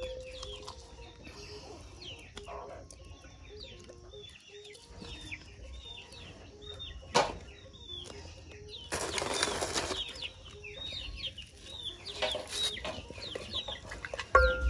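Many birds chirping in short, quick, high calls. A sharp knock sounds about seven seconds in, and a second-long burst of scraping noise about nine seconds in.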